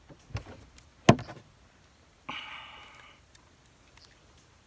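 Handling noises from a 20 gauge shotgun and its box of slugs: a soft click, then a sharp loud click about a second in, and a brief scraping rustle a little past two seconds.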